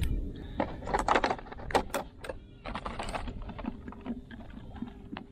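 Irregular clicks, rattles and small splashes from a round hand scoop net being lifted and handled in shallow water.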